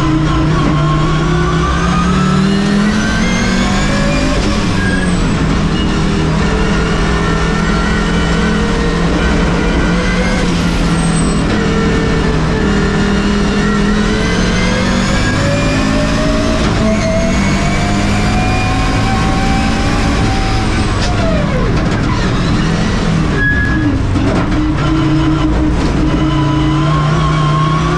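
Race car engine under hard acceleration, heard inside the stripped, roll-caged cockpit on a fast lap: the note climbs slowly through the gears and falls back, with one long climb that drops sharply about two-thirds of the way through as the driver lifts.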